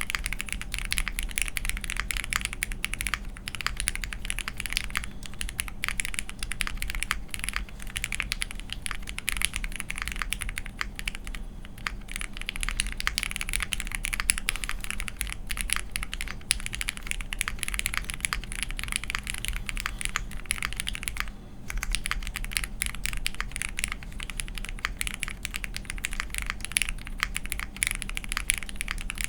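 Continuous typing on a Crucible65 65% custom mechanical keyboard with lubed and filmed Cherry MX Black Hyperglide linear switches on an aluminium plate, GMK keycaps and the tape mod. There is a brief pause about two-thirds of the way through.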